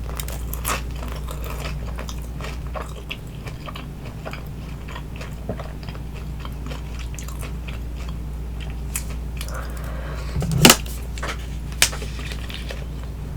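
Close-miked chewing of crispy baked spring rolls, with many small wet crunches and clicks. Two louder crunches come near the end, sounding like fresh bites into the crisp wrapper.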